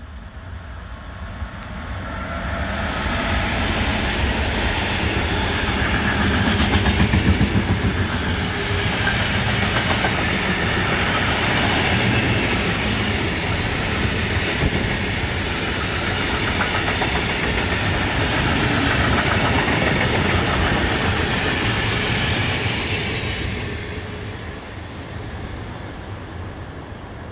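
Freight train passing close by: an electric locomotive hauling a long string of covered hopper wagons, the sound of wheels on rails building over the first few seconds, staying loud for about twenty seconds, then dying away near the end.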